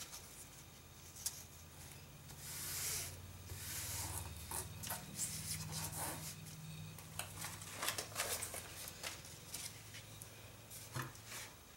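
Soft rubbing and rustling of hands smoothing glitter heat-transfer vinyl on ribbon, then a Teflon sheet being laid over it. A faint low hum runs beneath and stops near the end.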